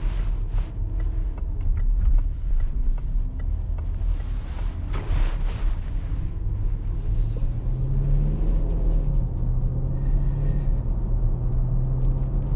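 Range Rover's supercharged 5.0-litre V8 and road noise heard from inside the cabin while driving: a steady low rumble, with the engine note rising about 8 seconds in and then holding.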